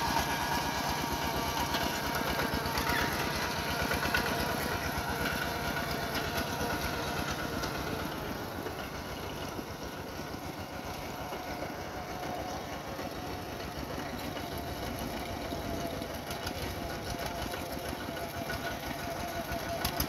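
Single-cylinder diesel engine of a Kubota RT155 walking tractor running steadily under load while it pulls a plough through wet paddy mud. It grows fainter in the middle and louder again near the end as the tractor turns back.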